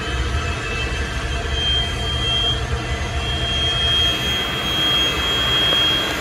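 Boeing 727's Pratt & Whitney JT8D turbofan running during engine start, heard from inside the cockpit: a steady high whine over a low rumble, the whine stepping up a little in pitch about a second and a half in and then holding.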